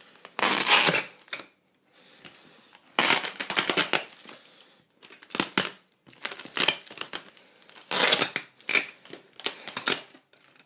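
Clear plastic packaging wrap crinkling and rustling in about six separate bursts as it is handled and pulled away.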